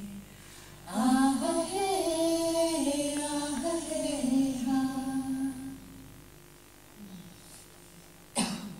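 A woman's voice singing a slow chant in long held notes that step up and down, played back over loudspeakers, from about a second in until about six seconds. A single cough near the end.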